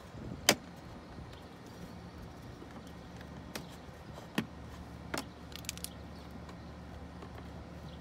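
Plastic door sill trim on a Tesla Model S being pried at with a flat plastic pry tool, giving scattered sharp clicks and snaps as it works against the trim's pin clips. The loudest comes about half a second in. A steady low hum runs underneath.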